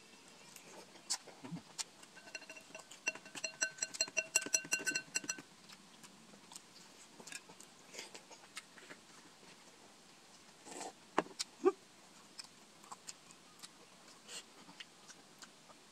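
A quick run of repeated bright plucked-string notes lasts about three seconds, starting a couple of seconds in. Around it are scattered faint clicks and smacks of eating grilled street food off bamboo skewers, with a brief cluster near the middle.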